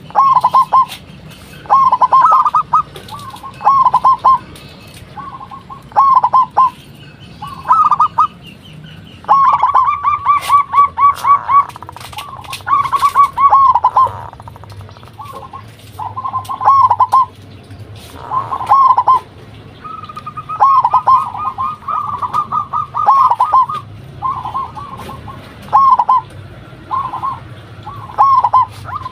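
Zebra doves (local perkutut) cooing in their rhythmic staccato song. Short fast phrases come one after another every second or two, and a second, slightly higher-pitched bird overlaps and answers in places.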